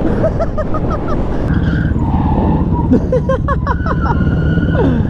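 Motorcycle engines running as a group rides down the street, a steady low rumble. Over it come short rising high-pitched calls, a few about a second in and a quick run of them around three seconds, then a held higher tone and a falling glide near the end.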